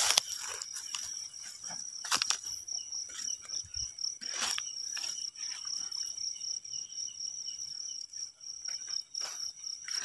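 A steady chorus of night insects chirping in a high, fast-pulsing trill, with a few brief soft knocks and rustles.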